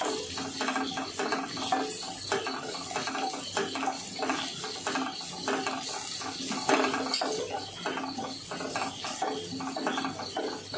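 Wooden spatula stirring and scraping sliced onions in a non-stick kadai, a quick, even run of scraping strokes, about three a second.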